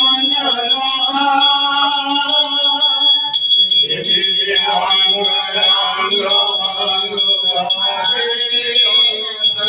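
A puja hand bell rung rapidly and without a break during aarti, a steady high ringing, under voices singing a devotional song.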